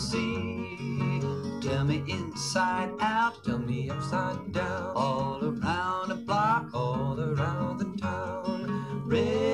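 Folk song playing from a 7-inch vinyl single on a turntable: strummed and plucked acoustic guitars with singing voices.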